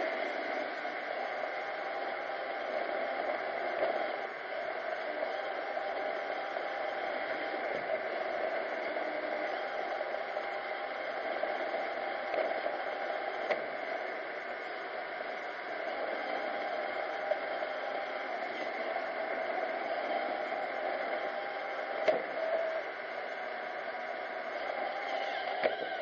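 iRobot Roomba 770 robot vacuum running, a steady machine hum from its vacuum motor and brushes, with a few brief sharp knocks about halfway through and near the end.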